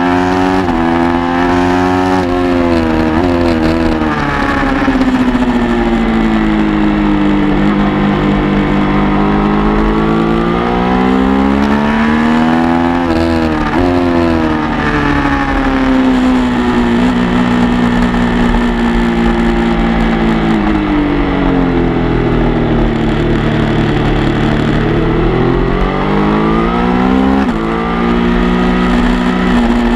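Motorcycle engine heard from the bike itself while lapping a race track: the revs climb for several seconds at a time, drop sharply at gear changes about 13 and 27 seconds in, and fall away in steps near the start as the rider slows, with wind rush throughout.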